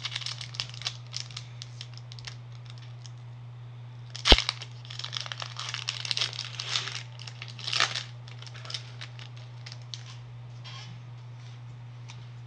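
Foil wrapper of a Pokémon trading-card booster pack crinkling and tearing as it is opened, in two spells of rustling with a sharp snap about four seconds in, then a few light ticks. A steady low hum runs underneath.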